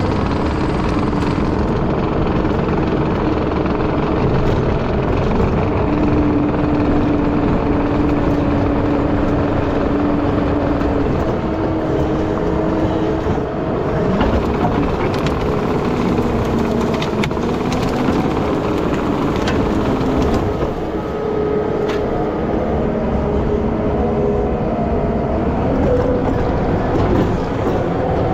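Skid steer engine running steadily under load, heard from the operator's seat, with a hydraulic whine that shifts in pitch as the machine drives and works its bucket.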